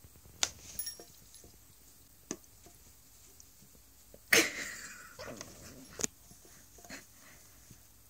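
Lineolated parakeet moving inside a sock on wooden floorboards: a handful of short, sharp clicks and squeaky calls, the loudest about four seconds in.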